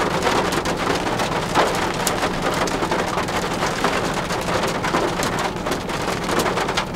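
Rain falling on a car's windows and body, heard from inside the cabin: a dense run of small drop hits over an even hiss, with a steady low hum beneath.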